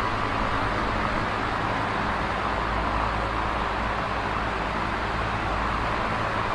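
Electric fan running at a steady speed: an even, airy whir with a low hum underneath.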